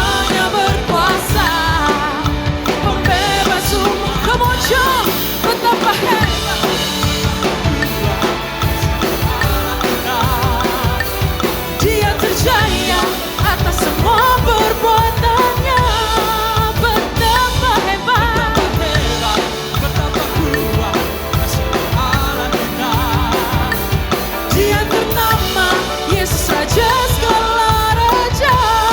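Drum kit played along to a song with a singer, at 151 beats per minute, with a metronome click track in the mix.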